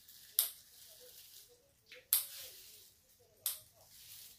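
Kitchen scissors snipping through boiled octopus: three sharp snips about a second and a half apart.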